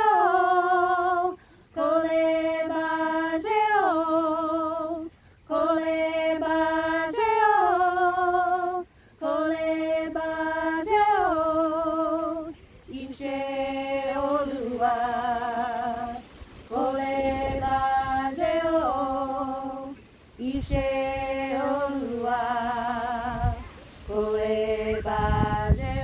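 Three women singing a cappella: a chant in repeated phrases of held notes that step down in pitch, with a short breath every three to four seconds. About halfway the melody moves lower and the held notes waver.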